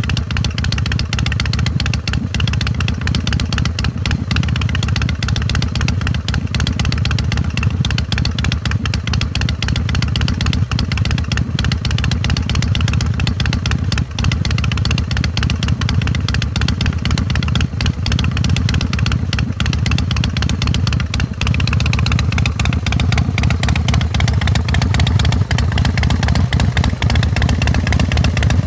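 A 2003 American Ironhorse Texas Chopper's carbureted 107 cubic inch (1,762 cc) S&S V-twin is idling through its Martin Brothers exhaust. It runs as a steady train of exhaust pulses, growing a little louder over the last few seconds.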